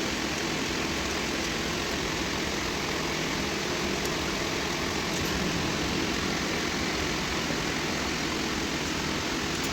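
Nissan Patrol Y62 engine idling steadily with its fan clutch and fan removed, with no whistle: the whistling came from the fan clutch.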